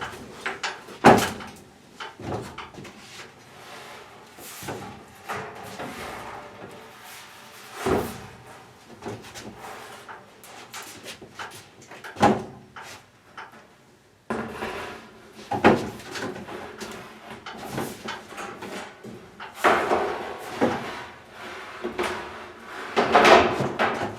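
Replacement sheet-metal roof skin being set onto a pickup cab and clamped: irregular clunks, knocks and scraping, with a few sharp knocks standing out, the loudest about a second in and near the end.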